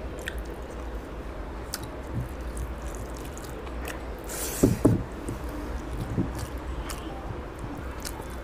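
Close-up eating sounds: wet clicks and smacks of chewing a mouthful of curry and rice, with fingers squishing rice on a steel tray. About halfway through there is a short hiss, then two low thumps, the loudest sounds.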